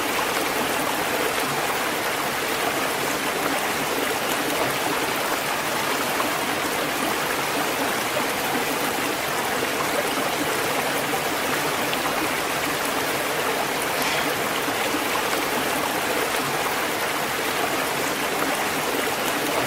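Waterfall and flowing water rushing, a steady even roar of falling and running water.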